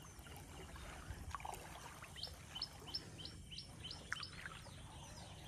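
A bird calling faintly in a quick run of short, high, downward-slurred notes, about four a second, for roughly two seconds in the middle.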